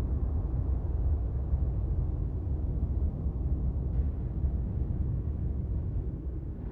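Steady low rumbling drone of a spooky ambience bed, with a faint hiss above it. A faint click about four seconds in.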